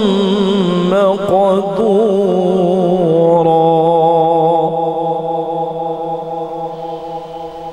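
A male qari reciting the Quran in melodic tajweed style. His voice winds through quick ornamented turns, then holds one long steady note that slowly fades.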